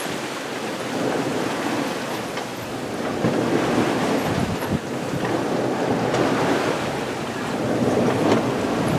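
Sea water rushing and splashing past a sailboat's hull through choppy open-ocean waves, mixed with wind buffeting the microphone; the wash swells and eases every second or two.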